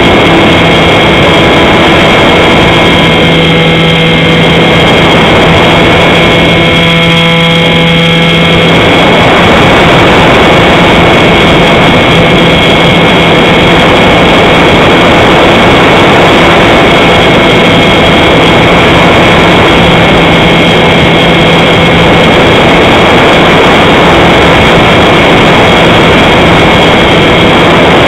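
A model airplane's motor and propeller running steadily, heard through its onboard camera's microphone over heavy wind rush. The sound is loud throughout. The low motor note fades for a stretch in the middle and then comes back.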